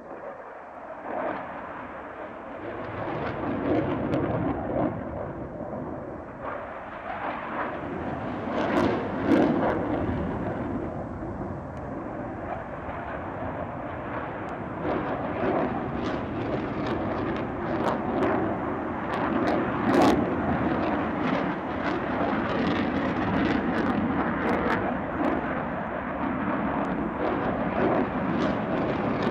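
Saab JAS 39 Gripen's single jet engine running loud during a display pass: a rough rumble that swells over the first few seconds, then holds, full of sharp crackles.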